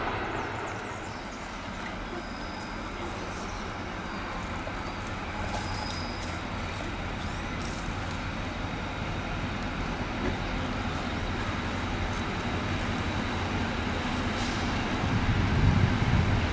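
Diesel-hydraulic locomotive (ex-ÖBB class 2143) running with a steady low engine drone as it draws its train slowly through the station, growing louder near the end as it comes closer.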